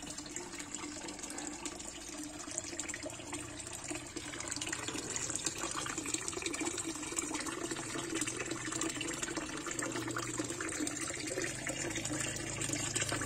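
A steady stream of water pouring from an outlet pipe into a koi pond and splashing on the surface.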